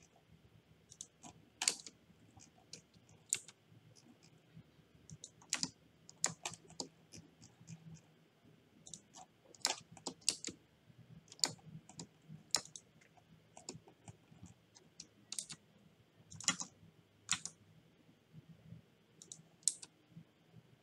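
Computer keyboard keys and mouse buttons clicking at an irregular pace, single clicks mixed with short quick runs of key presses.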